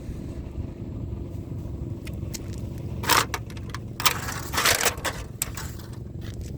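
Steady low rumble, with short bursts of rustling, scraping noise about three seconds in and again between four and five seconds, and a few light clicks near the end.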